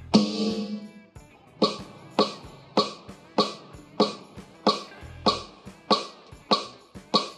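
Aroma TDX-25S electronic drum kit's snare sounds played through its sound module: one head hit with a ringing snare tone at the start, then a steady run of about ten drier rim-edge hits, somewhat under two a second.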